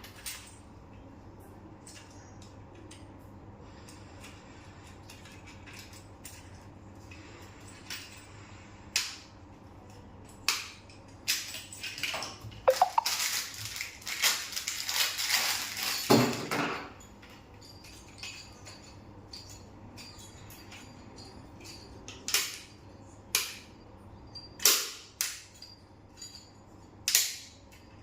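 Scattered sharp clicks and knocks of handling, with a few seconds of busy clattering and scraping about halfway through.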